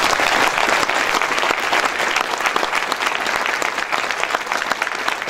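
Audience applauding, many people clapping in a dense, steady patter that eases slightly toward the end.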